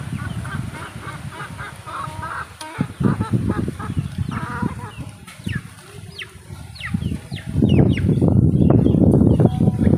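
Chickens clucking in a run of short repeated calls over the first few seconds. Quick falling chirps follow, and a loud low rumble comes in near the end.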